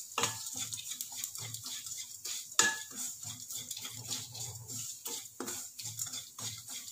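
Wooden spatula stirring and scraping semolina as it is lightly roasted in a nonstick kadai: a quick, irregular run of short scrapes, with one sharper knock about two and a half seconds in.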